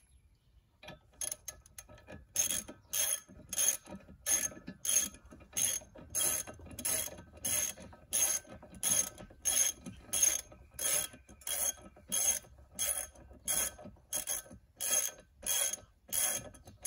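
Hand ratchet wrench turning a propeller nut onto an outboard's prop shaft: repeated back-and-forth ratcheting strokes, about one and a half a second, starting about a second in.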